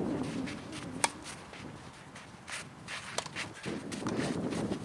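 A tennis rally on a clay court: sharp racket-on-ball strikes about two seconds apart, the loudest about a second in, among the players' footsteps scuffing and sliding on the clay.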